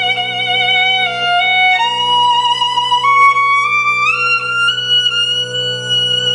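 Violin playing a melody with vibrato over a sustained accordion chord; the violin line climbs in steps through the middle of the passage. Instrumental passage, no singing.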